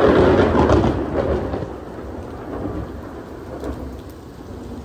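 Thunder rumbling over steady rain, loudest in the first second or so and then dying away.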